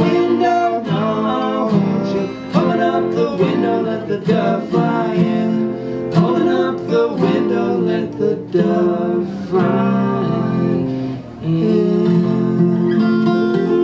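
Two acoustic guitars played together, picked and strummed, with two male voices singing the song together.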